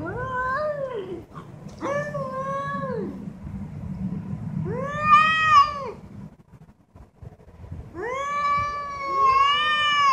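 Two cats yowling at each other in a standoff: four long, wavering, drawn-out howls, with a second cat's call overlapping the last one near the end. This is the caterwauling of a territorial face-off between tomcats.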